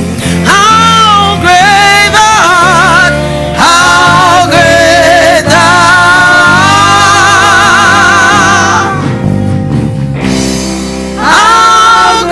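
Gospel worship singing with instrumental accompaniment: a voice holding long notes with wide vibrato. The voice drops out briefly past the middle and comes back near the end.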